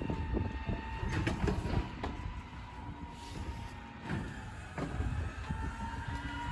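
Rear-loading garbage truck running at idle with a thin steady whine, while pieces of a wooden dressing table are thrown into its rear hopper, giving several knocks and clatters.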